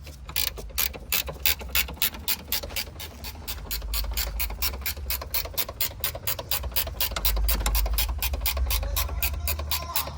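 Ratchet wrench clicking steadily, about five clicks a second, as a bolt is run in on the engine mount.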